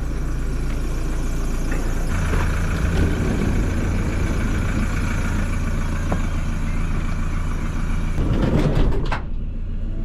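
Van engine running with a steady low hum, heard from close by and then from inside the cabin. The hum grows stronger about two seconds in.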